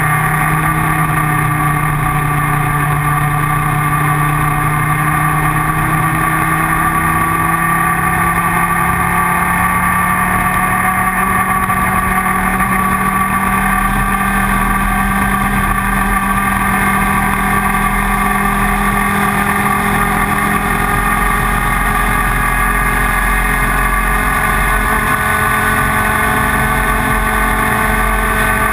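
IAME Leopard 125cc two-stroke racing kart engine running hard and steadily, its pitch climbing slowly through the first half, then holding high.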